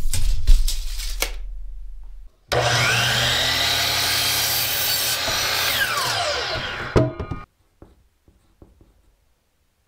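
DeWalt sliding compound miter saw cutting a pine 2x4: a short burst of saw noise at the start, then the motor spins up with a rising whine, the blade cuts through the board, and the motor winds down with a falling whine, stopping with a sharp knock about seven seconds in.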